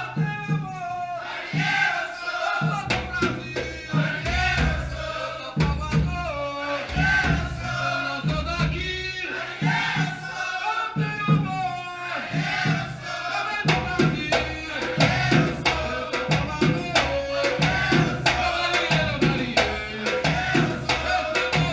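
Batucada-style drum ensemble playing with group singing over it; the drumming grows denser and louder about two-thirds of the way through.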